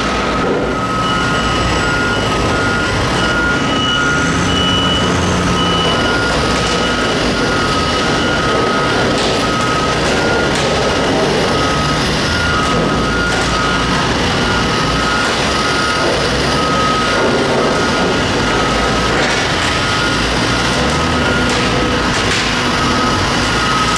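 Liebherr R9200 mining excavator moving, its diesel engine running with a steady low drone under a two-tone warning alarm that beeps about twice a second. A second, higher-pitched beeper sounds for a few seconds near the start.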